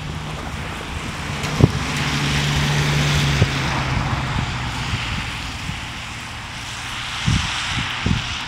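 Steady low hum of distant diesel locomotive engines, fading after a few seconds, under a swelling and easing wash of wind noise with a few low thumps of wind on the microphone.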